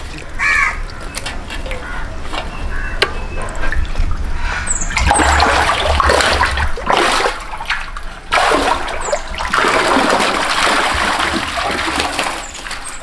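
Water splashing and sloshing in a small fish tank as fish are chased with a net, in two long loud spells.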